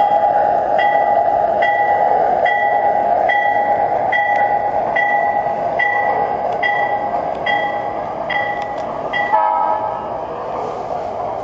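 MTH RailKing Aerotrain model train set's sound system playing a long held horn note and a bell ringing about once every 0.8 seconds over the steady running noise of the train; horn and bell both cut off about nine seconds in.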